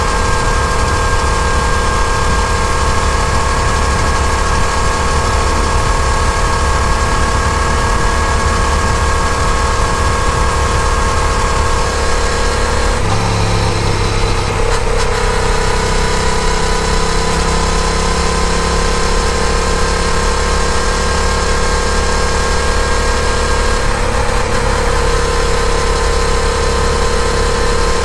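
Yamaha FZ-07's 689 cc parallel-twin engine running steadily under way on a road ride. The engine note changes about halfway through and again near the end.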